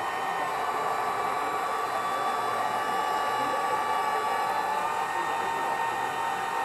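Hydraulic pump of a 1/14-scale radio-controlled wheeled excavator running with a steady whine while the boom and arm are worked.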